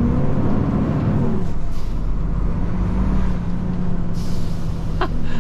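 Brand-new Scania P500's auxiliary brake working, heard from the cab over the 13-litre six-cylinder diesel: a steady drone with a broader swell in the first second and a half.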